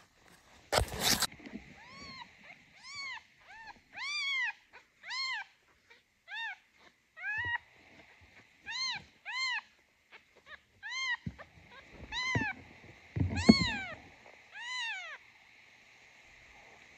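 Newborn tabby kitten mewing repeatedly: about a dozen short, high cries, roughly one a second, each rising and then falling in pitch. A brief loud scuffing of handling comes about a second in.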